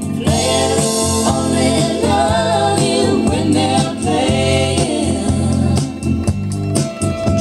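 A song played from a vinyl record on the turntable and heard through the hi-fi: singing with backing voices over a steady bass line, with drum hits coming in near the end.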